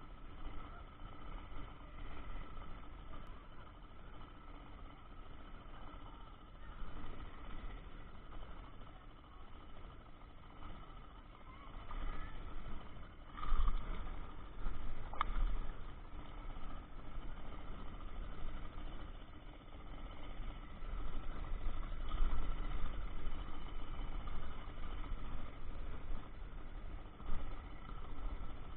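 A steady mechanical hum throughout, with a hooked fish splashing at the surface beside the boat and knocks from handling the rod and reel, loudest about halfway through and again a little later.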